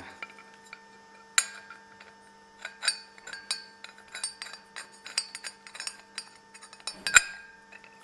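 Metal clinking, tapping and scraping as a siphon nozzle on its oil pipe is worked through a hole into a stainless steel exhaust tube. There are many small ticks, a sharp knock about a second and a half in, and a louder one near the end.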